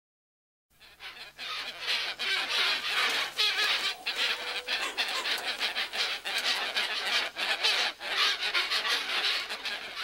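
A large flock of birds calling all at once, many overlapping calls in a dense, continuous chorus that starts just under a second in.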